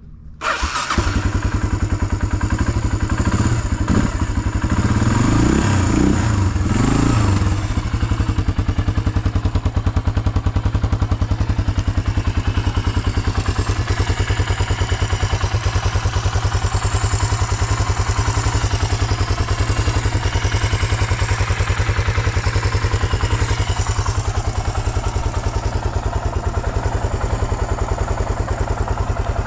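Suzuki DR350 (K406) 350 cc single-cylinder four-stroke motorcycle engine catching about half a second in. It is blipped up and down several times between roughly 3 and 7 seconds, then settles into a steady, even idle. It revs up cleanly with no abnormal noises.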